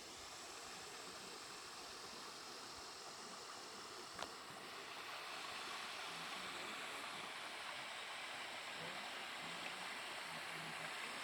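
Waterfall rushing: a steady, even hiss of falling water that grows a little louder about halfway through, with one sharp click shortly before.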